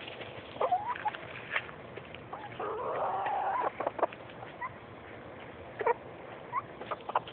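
Domestic chickens clucking and giving short calls, some rising in pitch, among a few sharp clicks. A longer, rougher call comes around three seconds in.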